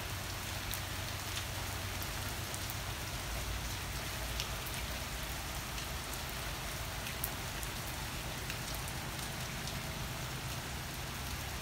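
Steady downpour of rain falling on garden plants, lawn and a wet patio, with scattered sharp ticks of single drops close by.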